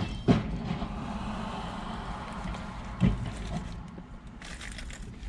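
A man chewing a mouthful of cheeseburger while its foil-lined wrapper crinkles, over a steady low rumble in the car cabin. Two dull thumps come just after the start and about three seconds in, and the wrapper's crackle is sharpest near the end.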